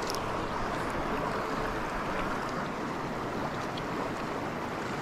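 River current rushing steadily, an even wash of water noise, with a few faint ticks right at the start.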